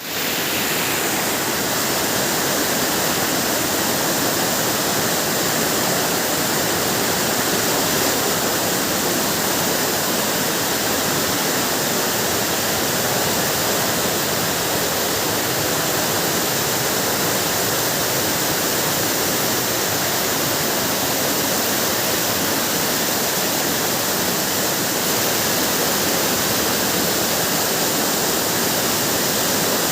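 Water flowing out of a cave, a steady loud rushing like a small waterfall.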